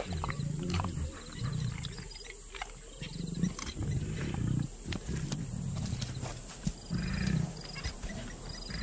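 Lionesses growling: a run of low, rumbling growls, about one a second.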